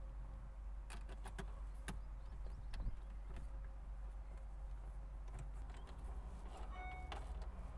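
Faint scattered clicks and taps of a T20 screwdriver and plastic dashboard parts as screws are driven back in, over a low steady hum.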